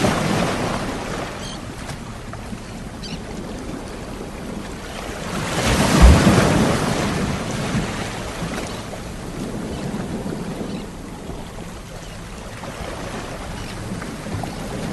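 Sea waves breaking and washing onto the shore, in slow swells, the largest about six seconds in.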